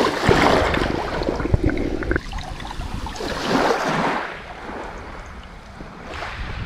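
Shallow sea water sloshing and splashing in surges, strongest over the first two seconds and again around three to four seconds in.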